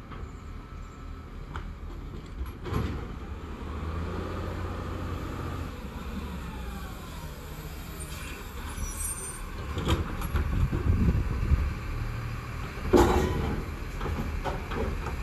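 Autocar ACX garbage truck with a New Way Sidewinder side-loader body driving up and slowing, its engine running with a steady low rumble that grows louder over the last few seconds. A single sharp, loud burst comes near the end, typical of an air-brake release.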